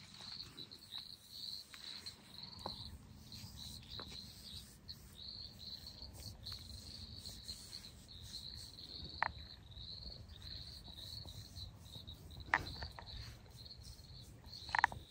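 Crickets chirping in a steady, high trill that breaks off briefly now and then. A few short sharp clicks come about nine seconds in, again near twelve seconds, and once more, loudest, right at the end.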